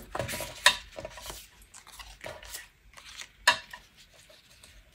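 Card and torn paper being handled and slid about on a cutting mat: light rustling, with two sharp taps, one under a second in and one about three and a half seconds in.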